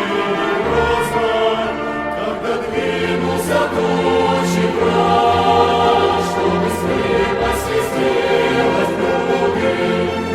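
A choir singing a hymn in several voice parts, in held chords that change every second or so.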